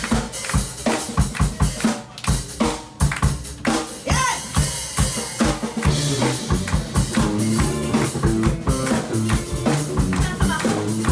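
Live rock band playing an instrumental passage, the drum kit's kick and snare driving the beat over bass and other instruments, with a short break in the drumming about two seconds in.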